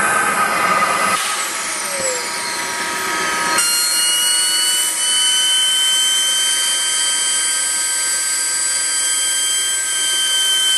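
SWB Mamba model jet turbine in a BVM F-16 radio-controlled jet, running on the ground after landing. Its whine falls in pitch for a couple of seconds after about a second in, then settles into a steady, high, multi-toned whine.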